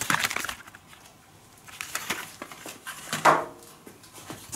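Fireworks packs being handled and put back into a cardboard box: packaging rustling with light knocks, in a few short bursts, the loudest about three seconds in along with a brief low sound.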